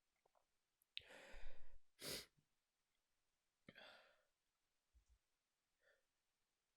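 Quiet breathy sighs and breaths from someone with a tickle in her nose: a sigh about a second in, a short sharp breath about two seconds in, another sigh near four seconds, then a few faint small sounds.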